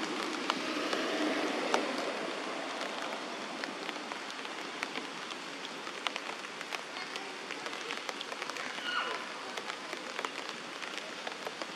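Rain pattering: a steady hiss dotted with many small, irregular drop ticks.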